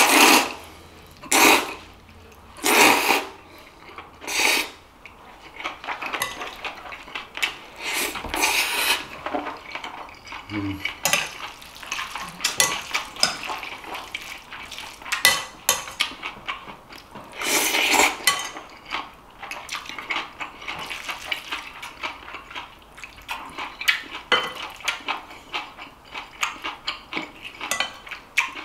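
Jjolmyeon noodles being slurped in loud bursts, four in quick succession at first and a few more later, between small clicks of chopsticks against a ceramic bowl.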